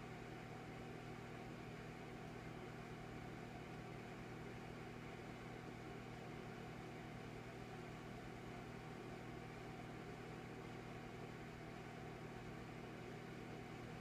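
Electric fireplace's fan and flame-effect motor running: a faint, steady hum and whir with an even hiss, unchanging throughout.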